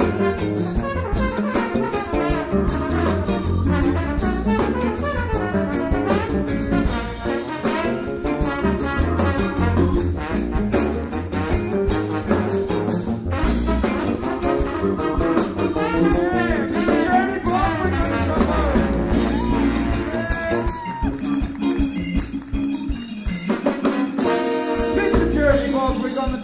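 Live funk band playing a trombone solo: the trombone plays a lead line over electric bass, drums and guitars, some of its notes sliding up and down. The bass and drums drop out for a moment near the end.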